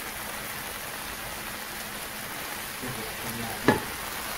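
Chopped vegetables and black beans sizzling in a stainless steel skillet with a steady hiss. Near the end the spatula knocks once, sharply, against the pan.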